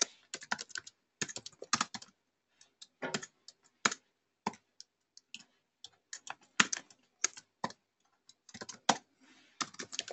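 Typing on a computer keyboard: irregular runs of key clicks with brief pauses between them.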